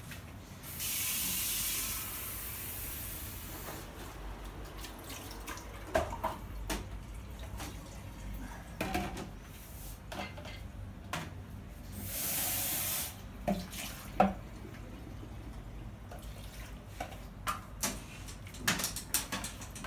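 A kitchen tap runs twice: about three seconds of water near the start and a shorter burst of about a second later on. Light knocks and clinks are scattered in between.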